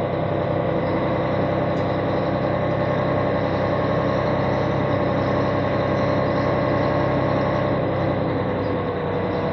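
Heavy diesel truck engine running at low speed, heard from inside the cab as the truck rolls slowly forward. It is a steady drone, and the note eases off slightly near the end.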